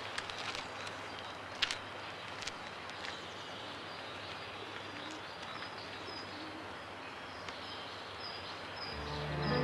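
Outdoor ambience: a steady background hiss with small birds chirping briefly and repeatedly, and a few light clicks in the first two seconds, the sharpest about a second and a half in. Near the end a low sustained music note starts and grows louder.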